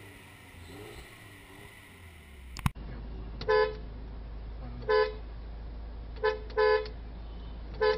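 A MINI Cooper S idles at its twin tailpipes for the first few seconds. Then the car's horn gives five short honks, two of them close together.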